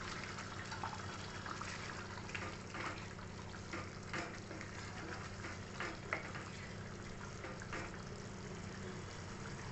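Wooden spatula stirring paneer cubes into thick, simmering curry gravy in a kadhai, with a wet liquid sound and a few short scrapes and knocks against the pan, over a steady low hum.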